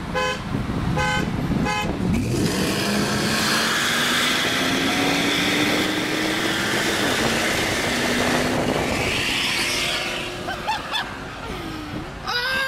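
Three short horn toots, then a supercharged Ford SVT Lightning V8 pickup accelerating hard, its engine note rising steadily with a break about seven seconds in, before it fades away. Voices come in near the end.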